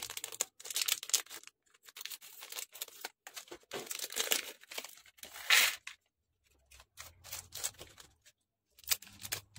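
Small clear plastic packets of craft mirrors crinkling and rustling as they are handled and pulled open, in irregular bursts that are loudest a little past halfway, with short pauses.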